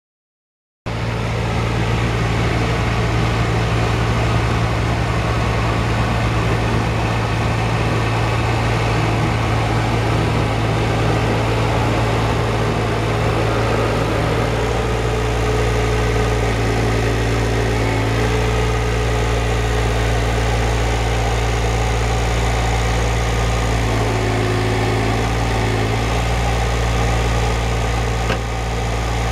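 Farm Pro 2420 compact tractor's Yang Dong three-cylinder diesel engine running steadily while the tractor is driven slowly, cutting in abruptly about a second in.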